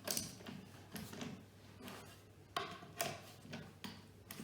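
Several light knocks and bumps of wooden flat-pack drawer panels being handled and pressed together, irregularly spaced.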